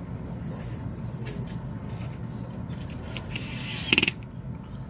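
Precision screwdriver driving a small screw into an iPhone 6S: a short run of ratcheting clicks about three and a half to four seconds in, the loudest sound, over a steady low hum.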